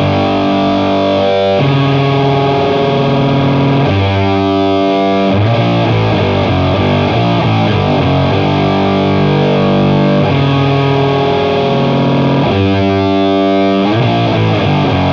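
Heavily distorted electric guitar, a parallel blend of octave-up fuzz and HM-2-style chainsaw distortion, playing a slow doom riff on the G minor harmonic minor scale. Long, sustained notes change every second or few.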